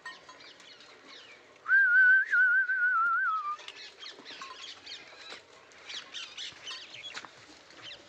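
A high, warbling whistle, held about two seconds and sliding slightly down in pitch at the end. Faint rustling and crackling of goats pulling at leafy fodder comes before and after it.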